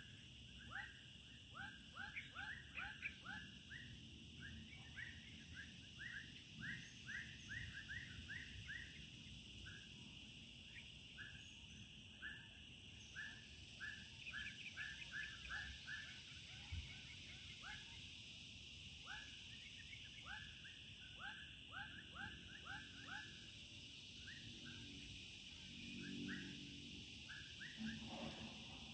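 Evening wildlife chorus: a steady high insect drone, over an animal's rapid short chirping calls, several a second, that thin out and stop near the end.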